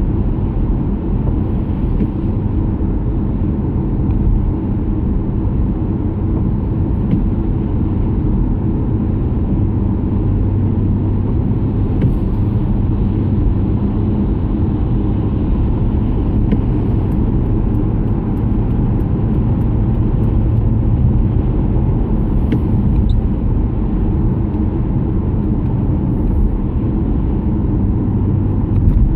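Road noise inside a moving car's cabin at motorway speed on a wet road: a steady low rumble of tyres and engine, with a few faint ticks now and then.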